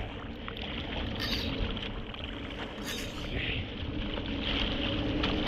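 Steady rushing noise of wind and water, with two short, brighter hisses about a second and about three seconds in.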